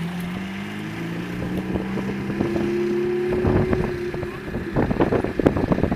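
Lamborghini Gallardo Spyder's V10 running at low revs with a steady engine note that edges up in pitch. About three seconds in it turns loud and ragged as the car accelerates, with wind buffeting the microphone.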